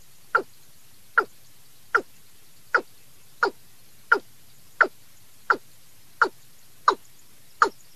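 Recorded watercock (cúm núm) lure call: a short falling note repeated steadily, about one and a half calls a second.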